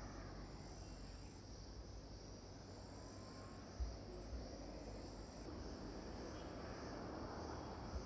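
Faint outdoor ambience of a steady high-pitched insect drone, with a still higher buzz coming and going about every two seconds, over low rumbling noise. There is one soft thump about four seconds in.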